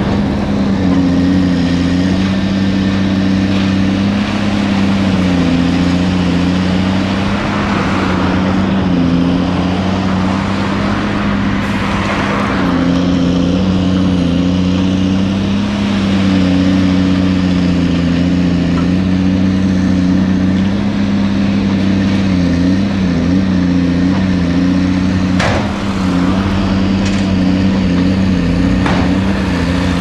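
Heavy diesel engine running steadily while a dump truck tips a load of sand, its pitch dipping briefly a few times. A few sharp knocks sound near the end.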